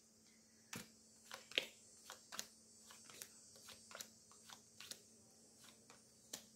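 Lenormand cards being dealt one at a time from the deck and laid down on a wooden lap desk: a faint, irregular run of short clicks and taps as the cards are drawn, snapped and set down.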